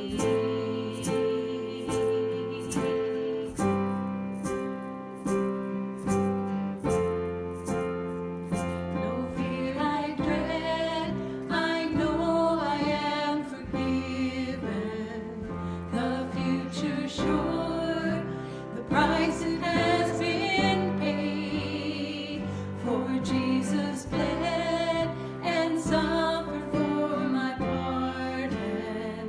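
Gospel worship song. It opens with an instrumental passage of keyboard and a steady beat of sharp strokes, and a singing voice comes in about ten seconds in over the accompaniment.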